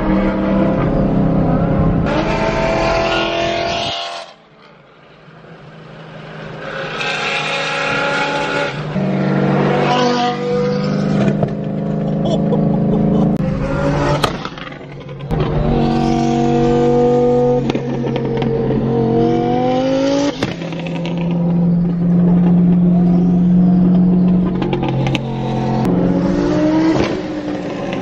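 Twin-turbo Lamborghini Huracán and supercharged Audi R8 V10 engines accelerating hard through the gears, each pull rising in pitch and dropping back at the upshift, with a few sharp cracks from the exhaust. The sound falls away briefly about four seconds in.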